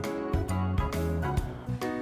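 Background music with a steady beat, bass and plucked-guitar notes.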